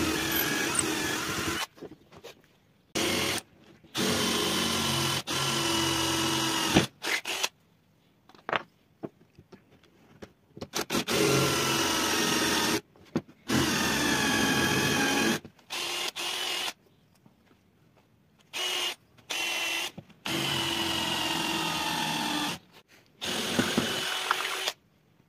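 Cordless drill boring into wood, run in repeated bursts of half a second to about three seconds with short pauses between. Its motor whine falls slightly in pitch during several of the bursts.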